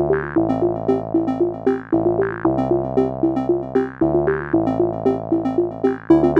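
Synthesizer music: a quick run of short repeated keyboard notes, about four a second, over held chords that change about every two seconds.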